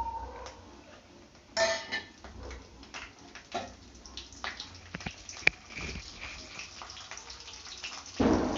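A metal spoon clinks and scrapes in a cooking pan, with scattered crackling ticks, as curry leaves and spices are tempered in hot groundnut oil. A louder clatter comes about one and a half seconds in, and a sharp click about five and a half seconds in.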